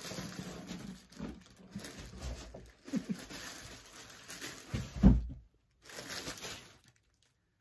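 Clear plastic packaging bag crinkling and rustling as a camouflage backpack in it is handled and pulled from its box, with small knocks and one heavier thump about five seconds in.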